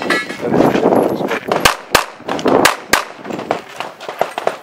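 Pistol shots from a Para P14 fired on a practical-shooting stage: a quick pair about a quarter second apart, a third shot a second later, then fainter shots near the end, with rushing noise between them. A short metallic ring at the very start, like a struck steel target.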